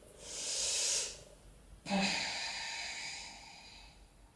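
Slow yoga breathing by a woman holding a forward bend: one airy breath of about a second, then a longer out-breath starting about two seconds in that fades away.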